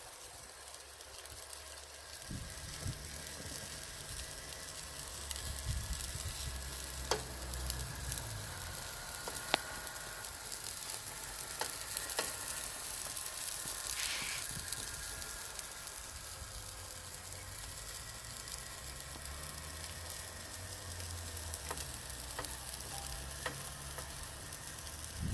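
Food sizzling in a frypan over a charcoal fire, a steady hiss with scattered pops and crackles, over a low hum.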